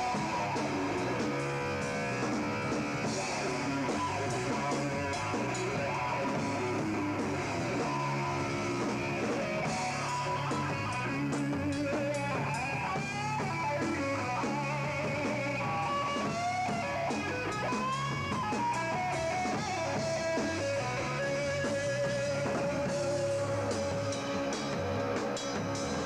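Live rock band playing: an electric guitar carries a lead line with pitch bends and vibrato over bass and a drum kit.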